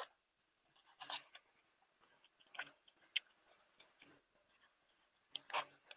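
Faint, scattered mouth sounds of someone chewing and sucking on a braised chicken foot: a handful of soft wet smacks and one sharp click, spaced a second or more apart with quiet between.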